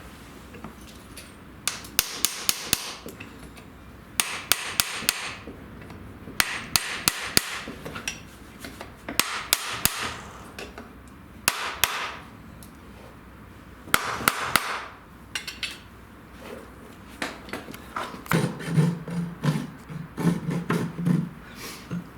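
Farrier's hammer striking in short runs of quick, sharp taps, a pause of a second or two between runs: nails being driven or clenched to fix a heart bar shoe to the hoof.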